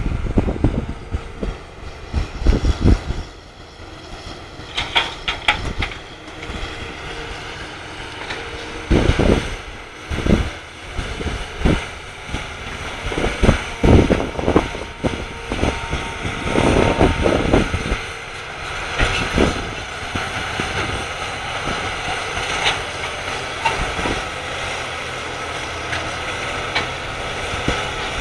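Diesel engines of heavy earthmoving machines running: a crawler excavator working, then a crawler bulldozer, with irregular loud bursts in the first half giving way to a steadier drone.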